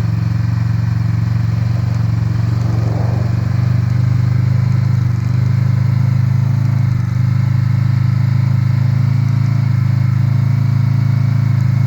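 Side-by-side UTV engine running steadily under load as it pulls a buried solid-steel probe up out of the ground, in two-wheel drive with the tyres barely turning.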